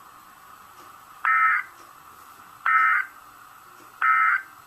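Three short bursts of EAS SAME digital data tones, warbling between two pitches, about a second and a half apart. Bursts this short are the "NNNN" end-of-message code, which marks the end of the emergency alert.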